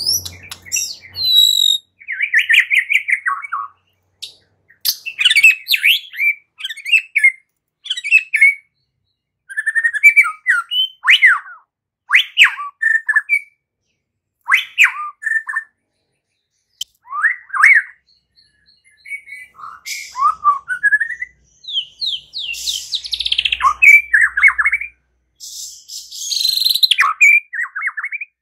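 White-rumped shama singing: a varied run of short whistled phrases and quick trills, with pauses of about a second between them.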